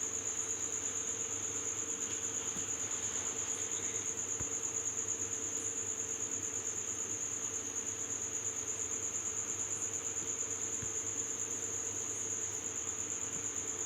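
A cricket trilling without a break: a steady, high-pitched, rapidly pulsing tone, over a faint low hum.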